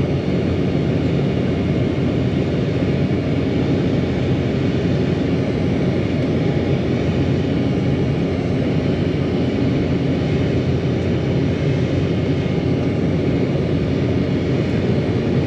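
Steady cabin noise of an Embraer 195 jet airliner during takeoff and climb: the roar of its twin turbofan engines and rushing air, heard from inside the cabin, with a few faint steady tones and no distinct events.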